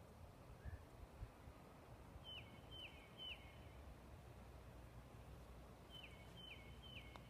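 A songbird whistling a short phrase of three notes, each dropping in pitch at its end, given twice. Faint outdoor rumble lies under it.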